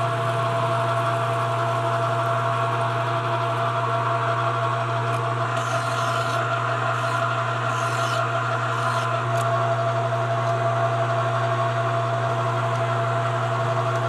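Metal lathe running steadily, a constant motor hum, while turning a piece of 3/4-inch cold-rolled steel, with faint brief scraping from the cut about halfway through.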